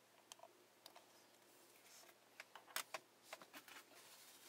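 Faint, scattered small clicks and taps of handling: tweezers and fingertips working on a wine-cork popper lure, busiest about two and a half to three seconds in.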